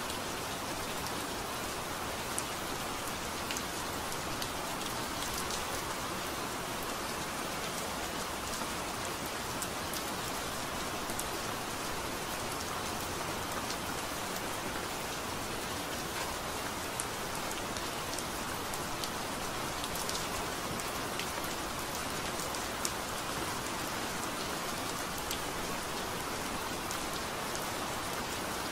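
Steady rain falling on a garden's broad, glossy leaves, an even hiss with single drops ticking sharply here and there.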